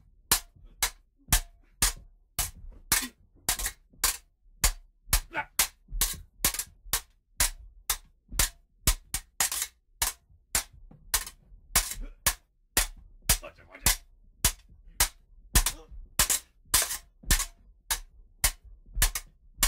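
Sword-fight sound effect: metal blades clashing again and again, about two to three sharp strikes a second at an uneven pace, some ringing briefly.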